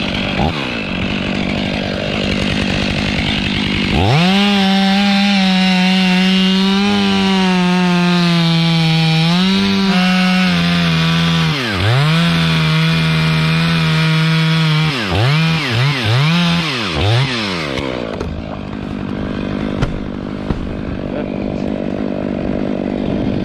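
Large Stihl chainsaw at full throttle cutting through a thick mountain ash trunk. The engine note dips sharply and recovers once partway through and then several times in quick succession, before settling back to a steadier, lighter running note.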